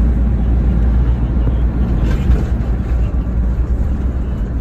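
Steady road noise inside the cab of a moving motorhome: a deep, even rumble of engine, tyres and wind.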